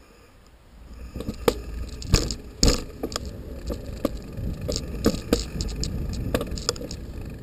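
Bicycle being ridden: a low rumble that builds about a second in, with irregular rattles and sharp knocks from the bike over the path.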